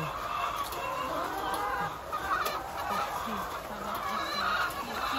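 A large flock of caged laying hens clucking and calling all at once, many short calls overlapping into a continuous din.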